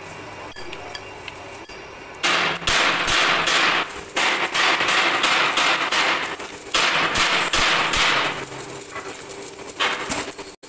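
Metalworking noise in a workshop: about two seconds in, loud harsh noise starts and runs in three long stretches with short breaks, stopping about eight and a half seconds in, with one shorter burst near the end.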